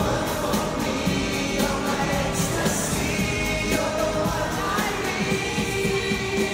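Live pop music from an arena PA: a male vocal group singing over an amplified backing track with a steady beat.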